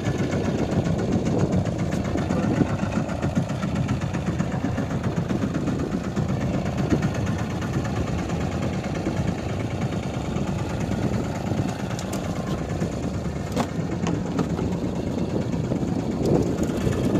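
Fishing boat's engine running steadily, with a few faint clicks in the later part.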